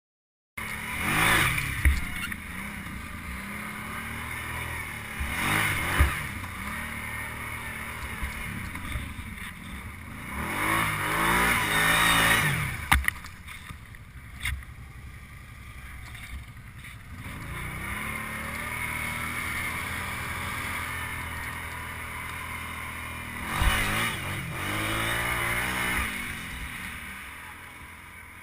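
ATV engine revving up and easing off again and again as it is ridden, with a few sharp knocks. The sound fades near the end.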